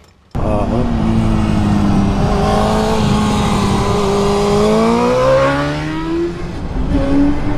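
2004 Suzuki GSX-R 1000 sport bike's inline-four engine accelerating hard, its pitch climbing, dipping at a gear change just after six seconds, then climbing again. It starts suddenly about a third of a second in.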